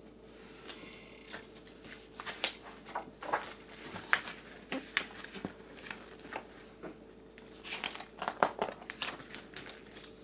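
A picture book being handled and opened: irregular crinkling and rustling of its cover and pages, with a scatter of short sharp crackles.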